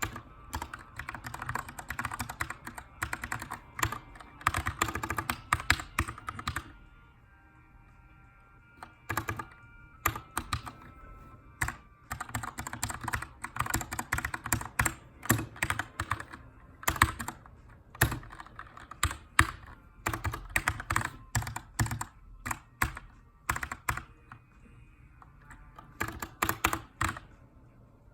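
Typing on a Keychron K2 aluminium-frame mechanical keyboard with brown switches: runs of keystrokes, a pause of a couple of seconds about a quarter of the way in, then uneven typing again. Faint background music underneath.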